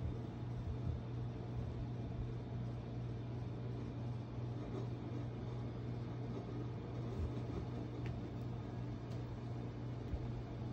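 Steady low mechanical hum with a faint hiss over it, unchanging throughout, with a couple of faint ticks near the end.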